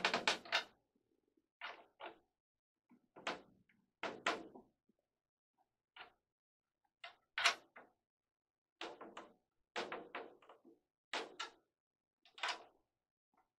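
Short knocks and clicks, one or two about every second, as a drum key is fitted onto and turned on the tension rods of a 16-inch floor tom. The new drumhead is being tightened lug by lug in a star pattern.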